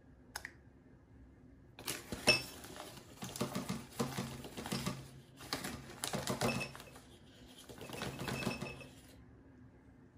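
Metal spoon clinking and scraping in quick bursts of clicks, with a faint ring, as spoonfuls of cornstarch are scooped and tipped into a stainless saucepan. The bursts come in several clusters after a single click near the start.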